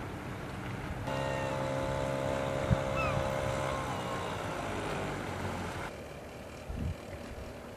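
A passing engine hums steadily, then drops in pitch past the middle, over wind on the microphone. A few short high chirps and one sharp knock sound over it.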